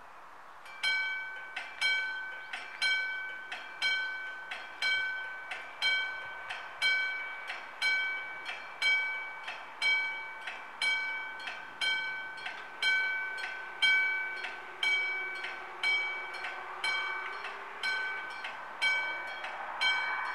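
Two old-style electric level-crossing bells start striking about a second in and keep ringing. There is roughly one loud stroke a second, with softer strokes in between, and each stroke leaves a ringing bell tone. It is the crossing's warning that a train is approaching.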